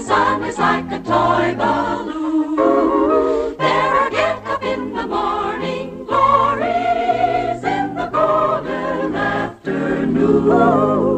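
Background music: a song with several voices singing over a steady bass line.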